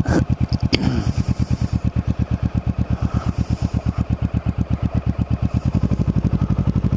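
Kawasaki Ninja 650R's parallel-twin engine running at low revs as the bike rolls slowly, a steady rapid pulsing exhaust note that grows a little fuller near the end.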